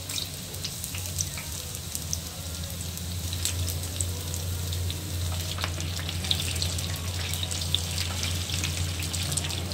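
Battered whole onions (onion pakoras) deep-frying in hot oil: a steady sizzle with scattered crackles and pops, over a low steady hum.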